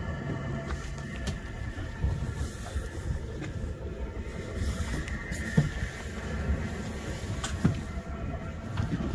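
Fishing boat's engine running steadily, a low rumble with a steady whine over it, with wind buffeting the microphone.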